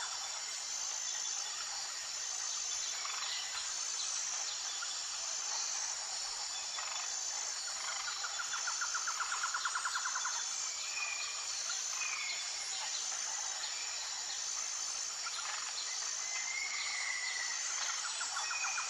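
Outdoor nature ambience: a steady high insect chorus with a regularly repeating chirp. A rapid pulsed trill comes in about eight seconds in and again near the end, and short whistled bird calls come and go.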